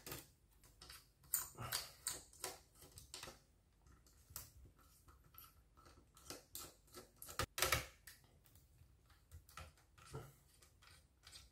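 Faint, irregular small clicks, taps and scrapes as fingers unplug ribbon and power cable connectors from an HP ProBook 450 G5 laptop's motherboard, with one sharper click past the middle.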